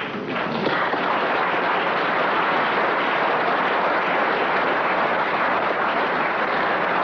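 Large audience applauding steadily, building up within the first second and then holding.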